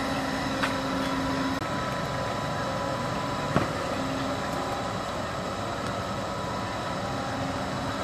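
Fire truck's engine running steadily while it works the aerial ladder and water pump, with two sharp pops, one shortly after the start and one about halfway through.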